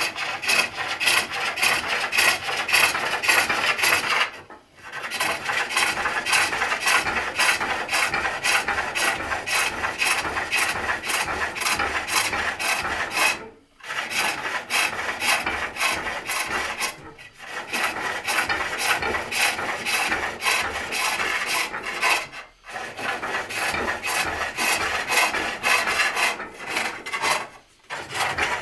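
Hook tool hollowing the end grain of a wooden lidded box on a foot-powered pole lathe: a steady rasping cut, broken by several short pauses where the tool comes off the wood.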